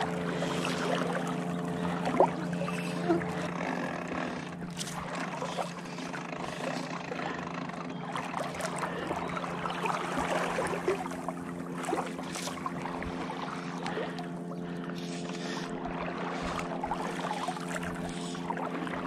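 A motorboat engine running at a steady, even hum, with water lapping and a few light knocks.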